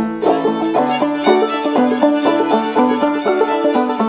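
Open-back banjo played clawhammer style: a quick, even rhythmic run of struck and plucked notes playing an old-time tune.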